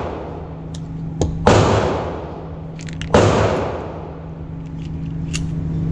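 Two handgun shots about a second and a half apart, each a sharp crack followed by a long echoing decay off the walls of an indoor range. The echo of an earlier shot is still fading at the start, and a steady low hum runs underneath.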